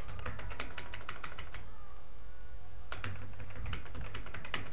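Computer keyboard typing: two runs of quick keystrokes with a pause of about a second between them.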